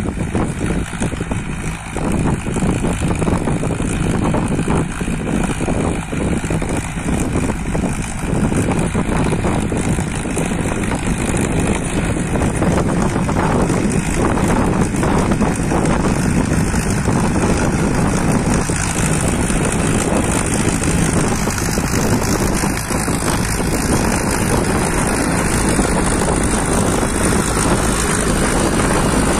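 A Mahindra Arjun 555 DI tractor's four-cylinder diesel engine runs steadily under load, driving a 4-foot Shaktimaan rotavator through the soil. The sound grows louder over the first several seconds as the tractor approaches.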